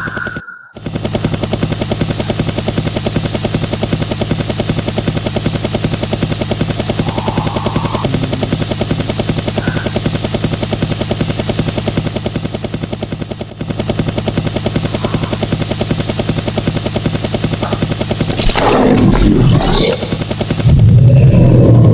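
Steady, rapidly pulsing aircraft-style engine drone with a deep hum, the chopping kind of a helicopter rotor. It cuts out for a moment near the start, a louder rushing burst comes near the end, and a heavier low rumble follows.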